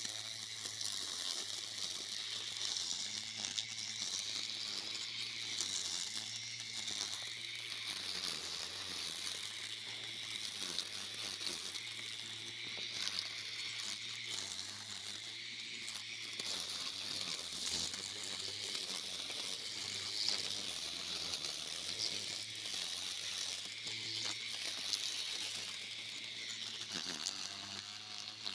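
Homemade lawn mower's 24-volt battery-powered DC motor running steadily, its spinning blade cutting grass. The sound is a steady motor hum under an even hiss.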